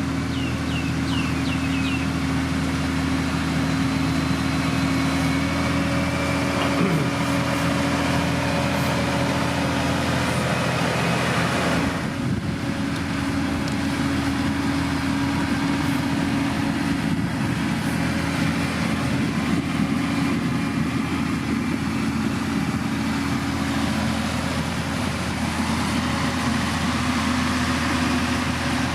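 Heavy diesel engine of a road-building machine running steadily, with a few short high chirps near the start and a brief change in its sound about twelve seconds in.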